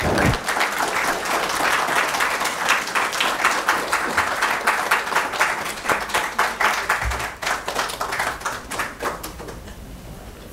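A small audience applauding, a dense run of hand claps that thins out and dies away over the last couple of seconds.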